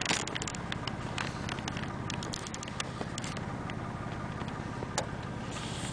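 SUV driving slowly over snow-covered lake ice: a steady low engine and tyre rumble with many scattered sharp crackles and clicks, one louder click about five seconds in.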